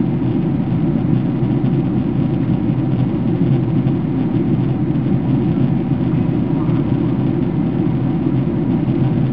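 Steady cabin noise inside a Boeing 767-300ER on approach: a low, even rumble of the jet engines and airflow, with a few faint steady hums above it.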